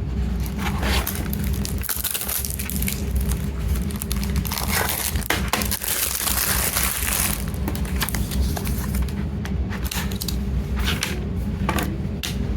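Plastic packaging of a CD single crinkling and rustling as it is handled, with two longer stretches of crinkling and scattered small clicks and taps.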